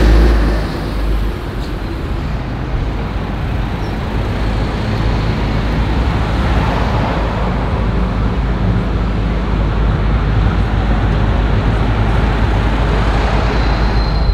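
Steady road traffic noise: motor vehicles running past with a low engine hum.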